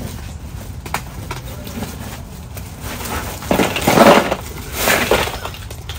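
Ice cubes being dumped into a cooler: a tick about a second in, then two loud crunching, clattering pours about three and a half and five seconds in.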